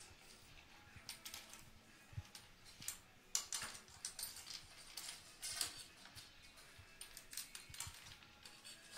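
A dog eating from a stainless-steel bowl: faint, irregular clicks and scrapes of its mouth and collar tags against the metal, a few louder ones in the middle.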